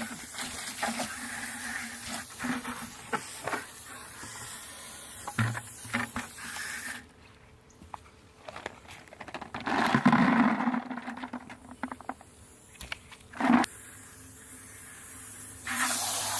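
Water from a garden hose hissing and splashing as a plastic bucket and black walnuts are rinsed, with scattered knocks of nuts and bucket. The hiss stops about 7 s in and starts again near the end, and a louder gush of water comes about 10 s in.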